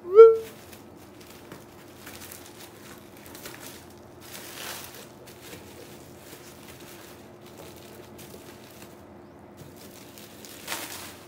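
Bubble wrap rustling and crinkling in soft irregular bursts as a parcel is unwrapped and cut with scissors, over a faint steady hum. A short, loud rising tone sounds right at the start.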